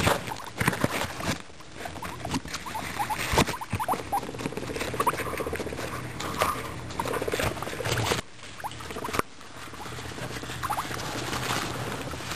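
Guinea pigs gnawing and crunching a raw carrot close to the microphone: a quick, irregular run of crisp crunching clicks.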